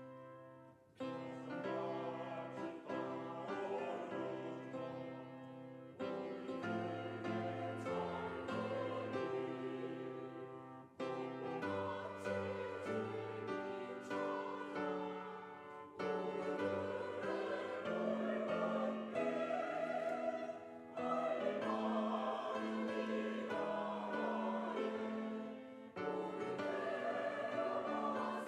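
Church choir singing an anthem in full chords with piano accompaniment, in phrases that start fresh about every five seconds.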